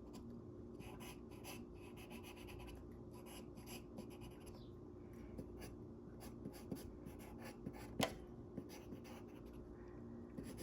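Scratchy strokes of sketching on paper, coming in quick short runs, with one sharper tap about eight seconds in, over a faint steady hum.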